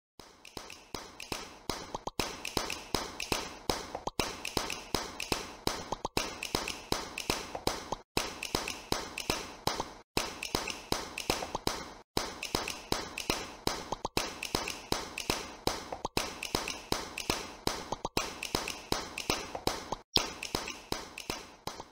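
Rapid, rhythmic tapping clicks in a pattern that repeats every two seconds, with a brief dropout between repeats, like a looped percussive intro track.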